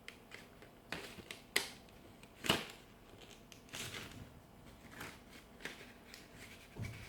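Scissors being handled and set down: a few scattered clicks and light knocks, the sharpest about one and a half and two and a half seconds in, with softer handling noise between.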